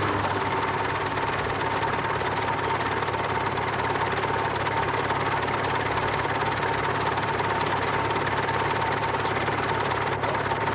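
An engine idling steadily, an even running sound that does not change.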